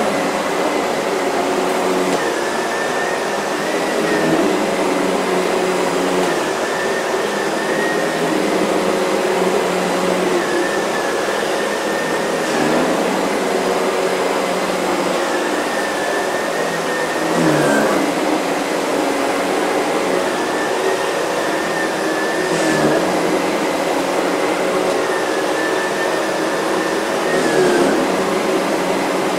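Miele C3 canister vacuum cleaner running steadily over a rug, with a steady high whine that wavers slightly and a small surge in level every five seconds or so.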